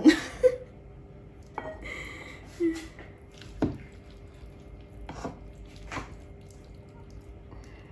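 A serving utensil knocks and scrapes against a baking dish and plate as a portion of baked pasta is lifted out and plated. It gives a handful of separate sharp knocks a second or so apart.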